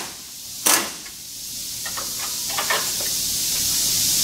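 A single sharp metallic knock under a second in, then a few faint clicks, as a tool works a bumper mounting bolt loose on a GMC Sierra 1500, over a steady hiss and a low rumble that slowly grows louder.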